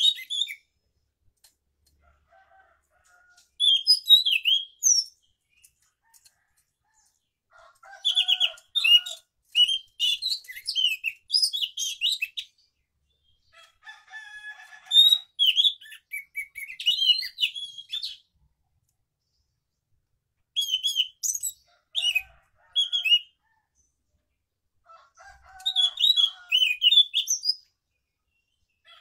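Caged scaly thrush (anis macan) singing: about six runs of varied, high, quick-changing chirping and whistled phrases, each lasting one to five seconds, with short pauses between them.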